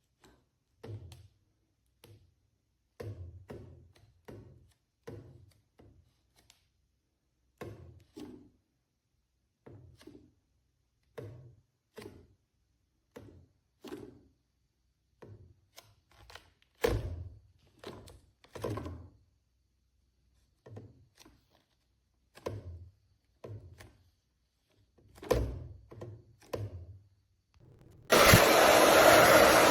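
A series of irregular soft knocks and thuds from objects being handled and set down. Then, near the end, a Conair Infiniti Pro 1875W hair dryer switches on and runs steadily with a loud airy whoosh.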